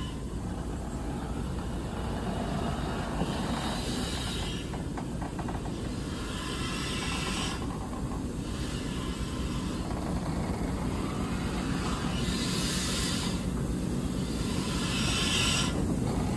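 Diesel shunter running steadily as it pushes a failed BR Standard Class 9F steam locomotive along the track. A hiss rises and falls every few seconds over the engine's rumble.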